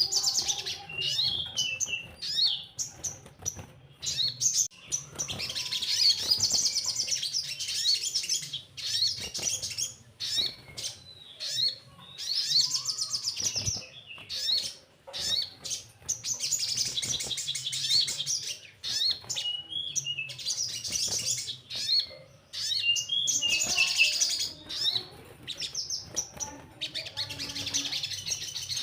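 Crimson sunbird (sogon) singing: runs of rapid, high twittering trills lasting a second or two, repeated every few seconds, with short chirps in between.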